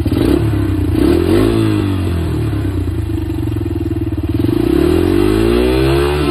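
Motorbike engine running and being revved: a short rise and fall in pitch about a second in, then a longer climb in revs near the end.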